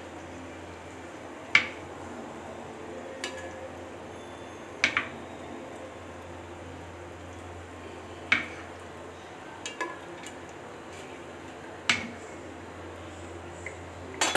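Metal tongs clinking against a cooking pot as fried boiled eggs are lowered one by one into potato curry. There is a sharp click every couple of seconds, about seven in all, over a steady low hum.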